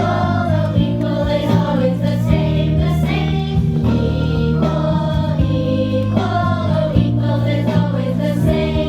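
A group of young children singing a song together, with instrumental accompaniment underneath.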